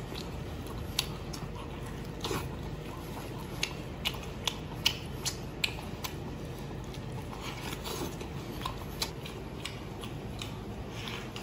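Wet chewing and lip-smacking of a person biting into a whole braised pork hock with soft, sticky skin. There is a quick run of sharp smacks from about one to six seconds in and another near the end, over a steady low background hum.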